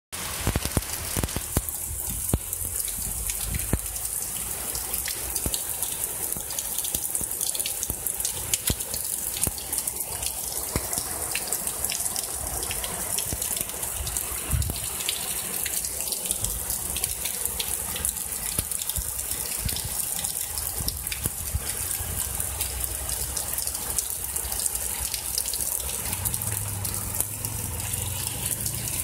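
Heavy rain pouring steadily onto a street and rooftops, with many sharp ticks of nearby drops and a low rumble of wind.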